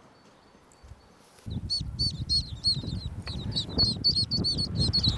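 Mallard ducklings peeping: many quick, high calls in a row, starting about a second and a half in, over a low rumbling noise.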